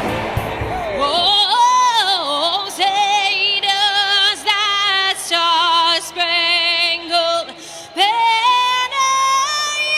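A woman singing solo, with long held notes and strong vibrato; a second or so of mixed noise comes before the voice begins.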